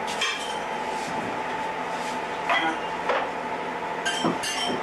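Serving utensils clinking against a pot and glass bowls as food is dished out: about four separate clinks over a steady hum.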